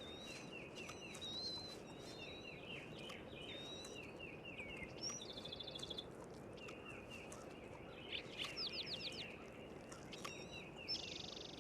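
Birds chirping and singing, faint, with many short chirps, a rapid trill about five seconds in, a quick run of slurred notes about eight seconds in, and another trill near the end, over a low steady hiss.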